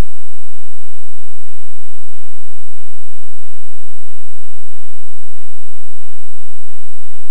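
Steady electrical hiss and low hum, unchanging, with no distinct events.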